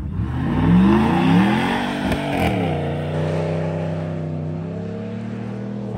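Ram pickup truck's engine revving hard as the truck pulls away. The revs climb twice in quick succession, drop about two and a half seconds in, then hold steady as the truck moves off and grows fainter.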